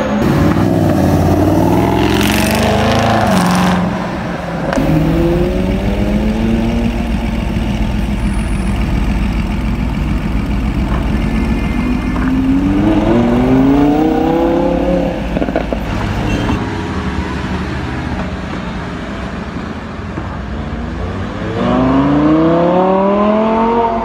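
Sports car engines running loud and accelerating hard, the pitch climbing in three sweeps: about five seconds in, around thirteen seconds, and near the end, with a low exhaust rumble between.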